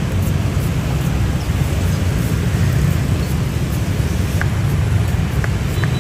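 Steady low rumble of vehicle traffic, with a few faint clicks in the last two seconds.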